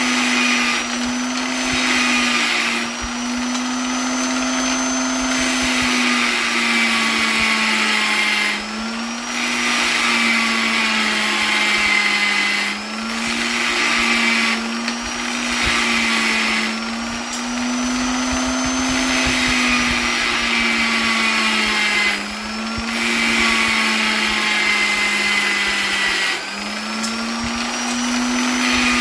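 Electric polisher running continuously: a steady motor hum with a hiss over it. The pitch wavers slightly, and the hiss eases off for a moment every four to five seconds.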